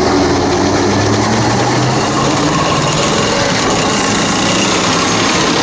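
Leclerc main battle tank driving past slowly, its engine and tracks making a loud, steady running noise.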